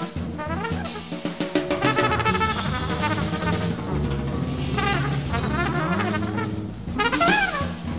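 Improvised jazz trio recording: trumpet playing bending, sliding phrases over bass and drum kit, with a swooping trumpet line near the end.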